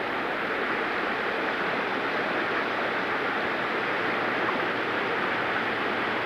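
Steady rushing of fast-moving floodwater, an even, unbroken noise.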